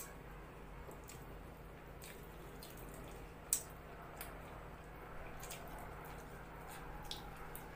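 Small wet clicks and squishes of eating by hand: baby naan torn and dipped into rajma curry, then chewed. The loudest click comes about three and a half seconds in, over a faint steady room hum.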